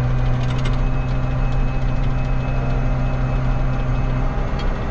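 Diesel engine of the 8940 tractor idling steadily, with a quick cluster of light clicks about half a second in.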